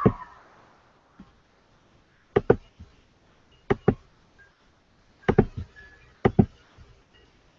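Sharp double-clicks on a laptop trackpad, close to the built-in microphone: four quick pairs of clicks, about one to one and a half seconds apart.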